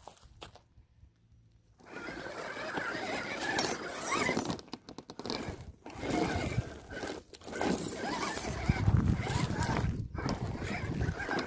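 Small electric RC crawler's motor and gears whining, the pitch wavering up and down with the throttle, mixed with tyres scrabbling over rock, in short clips with abrupt cuts between them. There is a heavier low rumble about two-thirds of the way through.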